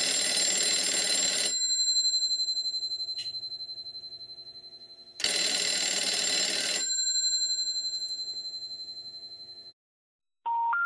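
Bell of a black Western Electric 302-style rotary desk telephone ringing twice, about a second and a half each time, about four seconds apart, with the gongs ringing on after each burst. The called line is being rung by ringing current from a step-by-step connector. Just before the end a steady electronic tone begins.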